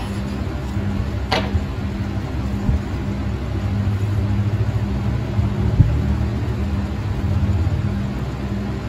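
Steady low hum and rumble, louder through the middle, with one sharp click about one and a half seconds in.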